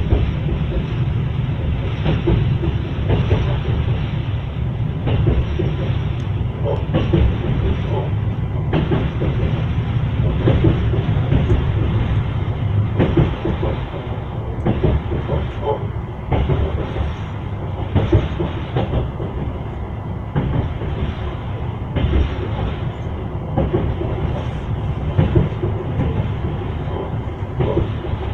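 Train wheels knocking over rail joints in a running clickety-clack, over a steady rolling rumble.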